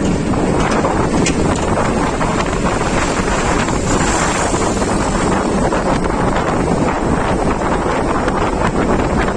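Loud, steady wind buffeting the microphone on a moving ride, with vehicle road noise underneath.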